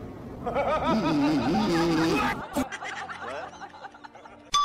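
A person snickering and laughing for about two seconds, then it goes faint.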